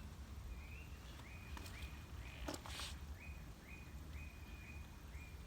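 A bird calling over and over: a string of about eight short notes on one pitch, each starting with a quick upward slide, roughly two a second. About halfway through there is a click and a short rustle.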